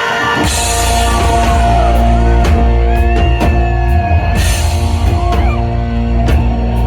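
Live rock band kicking into a song about half a second in, with heavy bass, drum kit with cymbal crashes and a sliding lead line, following a burst of crowd cheering.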